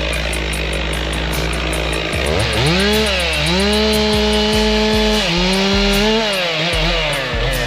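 Two-stroke chainsaw cutting wood. Its engine pitch sags as the bar loads in the cut and climbs back to a steady high whine, several times over.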